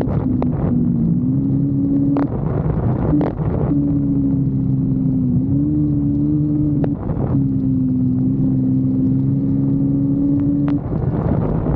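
Kawasaki Versys-X 250's parallel-twin engine running at a steady pitch under way, heard from on the bike. The note breaks off briefly about four times, with the pitch dipping and recovering, before settling back to the same steady drone.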